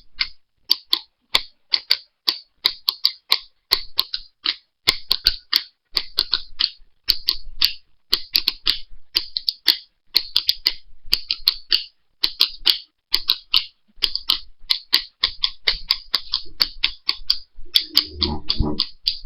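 A rapid, uneven series of short high-pitched chirps or ticks, about five a second, with a brief low thud near the end.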